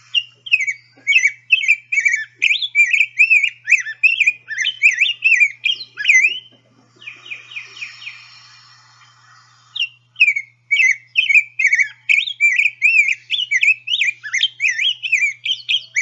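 Rose-breasted grosbeak song: rapid, sweet, robin-like warbled whistled phrases, in two long bouts with a pause of about three seconds between them, in which fainter scratchy background sound is heard.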